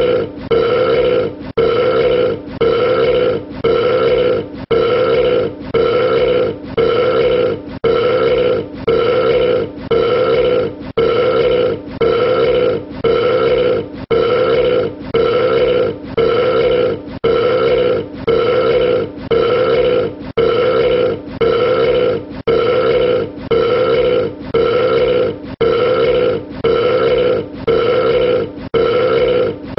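A man's burp, the same short belch repeated over and over at an even pace, a little more than once a second, like one clip played on a loop.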